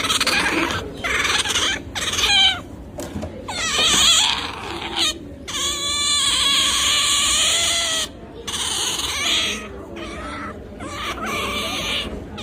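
Otter making repeated high-pitched calls while being gently patted, with one long call of about three seconds near the middle.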